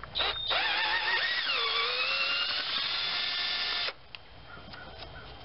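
A lower intake manifold bolt on a 3.4L GM V6 being spun out with a socket and extension gives a continuous high squealing whine for nearly four seconds. Its pitch dips partway through, climbs slowly, then cuts off suddenly.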